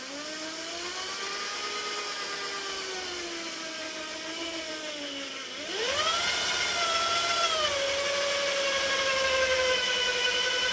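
Corded electric drill whining as its bit bores down into the end of a hiking-stick shaft, run slowly at first to bed the bit in. About six seconds in it speeds up sharply to a higher, louder whine and holds there.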